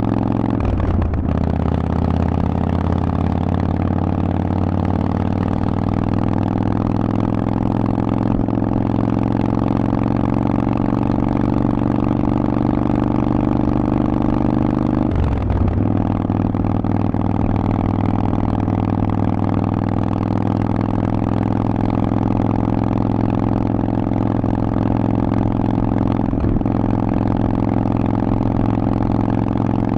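Harley-Davidson Forty-Eight's air-cooled V-twin running through Vance & Hines aftermarket exhaust pipes while riding. The engine note is loud and steady and rises slowly in revs, with short dips in the note about a second in and again about halfway through.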